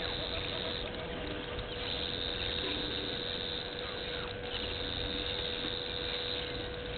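Steady electrical mains hum in the microphone feed, with a thin steady high whine over faint outdoor background noise.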